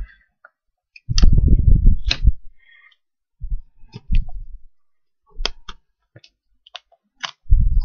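Hands handling and pressing down a folded paper wallet and sticky tape on a table: a stretch of low rubbing about a second in and again near the end, with scattered sharp clicks and taps in between.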